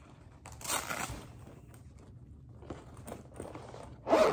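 Handling noise from a nylon oboe case: a short rustle about half a second in and a few faint clicks, then near the end a zipper on the case cover starts being pulled open, loud and scratchy.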